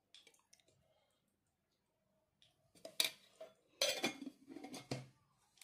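Metal kitchen utensils clinking and clattering: a few sharp clinks about three seconds in, then a longer run of clatter around four to five seconds.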